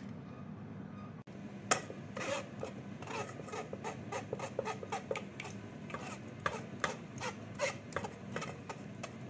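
Metal ladle scraping and pressing red date batter through a stainless steel mesh sieve, in many quick irregular strokes that begin a little under two seconds in. The sieve holds back the date pulp and skins so the batter comes out smooth. A steady low hum runs underneath.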